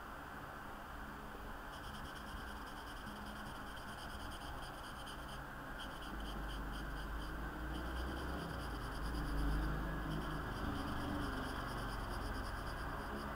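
Felt-tip marker scratching on sketchbook paper in quick repeated strokes, colouring in a solid black area. It starts about two seconds in, pauses briefly near the middle, and a low rumble joins underneath from about six seconds in.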